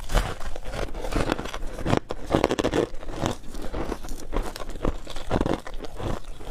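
Close-miked crunching and crackling of frozen shaved ice soaked in passion fruit juice, bitten off and chewed in quick, dense crunches.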